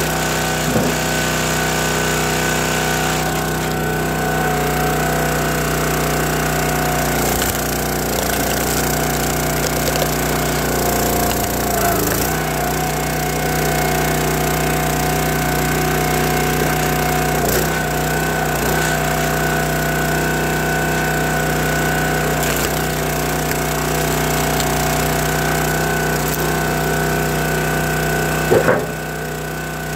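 County Line log splitter's small gas engine running steadily while its hydraulic ram splits red oak and maple rounds, with a few sharp cracks of wood giving way and a loud knock near the end.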